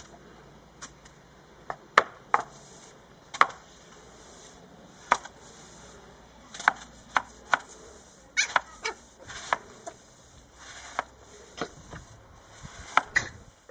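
Push broom's plastic head and wooden handle knocking and scraping on ceramic-tiled steps, with a yorkshire terrier puppy grabbing at it: irregular sharp knocks, some loud, with short swishes of the bristles between.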